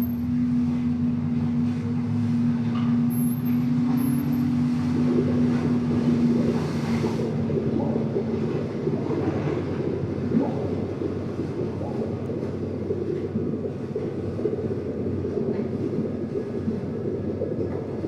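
A vehicle running with a steady drone. About eight seconds in, the drone fades and leaves a rough, continuous rumble.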